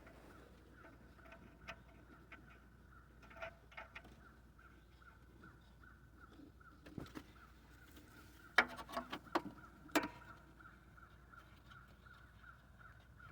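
Faint metallic clicks and taps as a new air-fuel ratio sensor is handled and threaded in by hand, with a cluster of sharper clicks about two-thirds of the way through. A faint steady high tone pulses evenly underneath.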